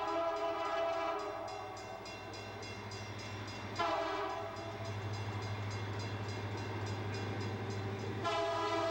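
Diesel freight locomotive's air horn blowing as the train approaches: one blast fades out about two seconds in, a short blast comes near four seconds, and another blast starts near the end. Between the blasts the locomotive's diesel engine rumbles, growing louder as the train draws near.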